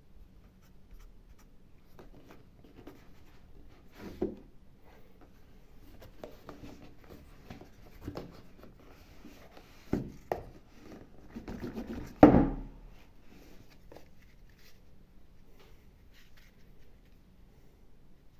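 Packaging being handled during an unboxing: scattered rubbing and rustling with a few knocks, the loudest a thump about twelve seconds in.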